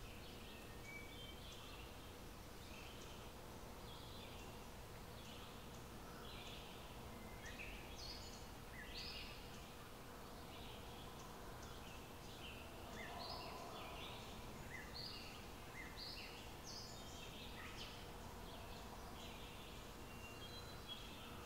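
Birds calling over and over, short high chirps about once or twice a second at varying pitches, over a steady low rumble and a faint steady hum.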